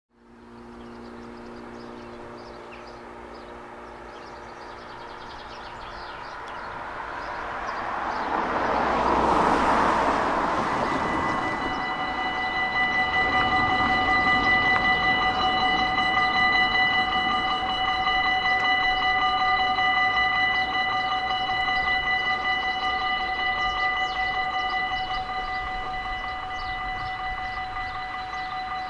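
Dutch level-crossing warning bells start ringing about twelve seconds in and keep ringing steadily, a set of bright electronic tones signalling an approaching train as the half-barriers lower. Before that, a rush of noise swells and fades, loudest around ten seconds in.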